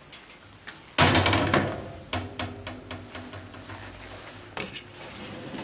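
Cold-rolled sheet-steel tool cabinet being shut: a loud metallic clatter about a second in, the thin steel ringing on for a few seconds, then smaller clicks and knocks as it is handled.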